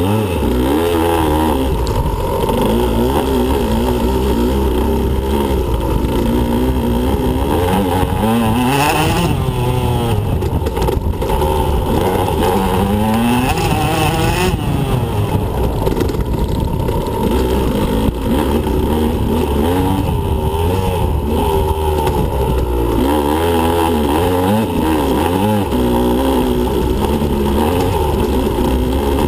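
2015 Husqvarna TE125 two-stroke dirt bike engine running hard, its pitch rising and falling continuously as the throttle is opened and closed.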